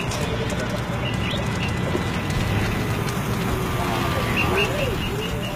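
Steady outdoor background noise with birds calling over it, ending in a quick run of short high chirps, about six a second.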